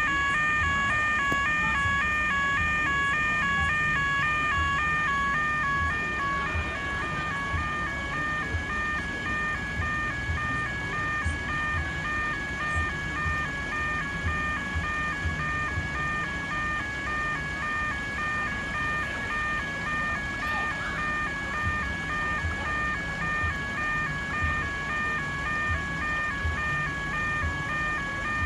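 Railway level crossing warning bells sounding a rapid two-note electronic alternating tone. It is louder for the first six seconds or so, then a little quieter, with low regular thuds underneath.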